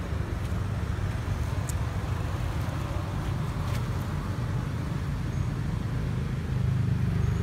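A steady low rumble of outdoor background noise, with a few faint ticks and no calls from the monkeys.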